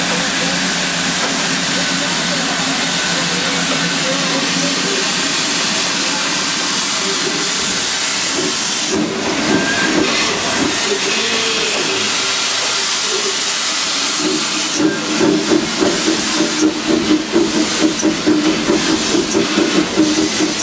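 Loud, steady steam hiss in the cab of an oil-fired Shay locomotive. About three-quarters of the way through, an even pulsing beat of the engine's exhaust starts, roughly two to three strokes a second, as the locomotive gets under way.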